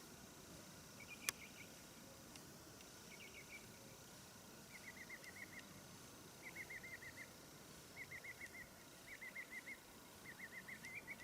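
Faint animal calling: short chirping trills of several quick notes each, repeated about every second and a half over a low steady hiss, with one sharp click about a second in.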